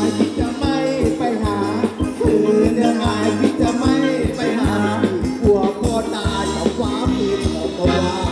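Live band playing Thai ramwong dance music over a PA system: a steady, quick drum beat with a shaker-like rattle, held tones, and a voice singing the melody.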